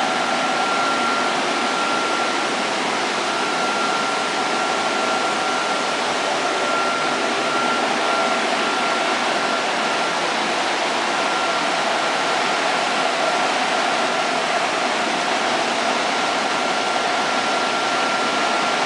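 Small wheat flour mill machinery running: roller mills and the air pipes and cyclones of the mill give a steady, dense rush of noise with a constant high whine over it.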